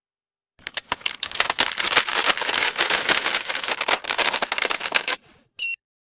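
Coins jingling and rattling in a dense, irregular run of metallic clicks for about four and a half seconds, followed near the end by one short electronic beep.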